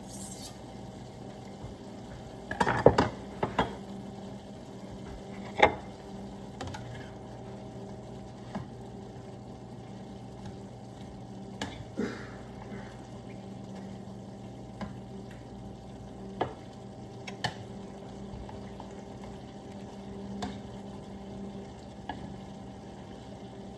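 Ground beef and onions frying in a pan, with a utensil stirring, scraping and knocking against the pan every few seconds over a steady low hum.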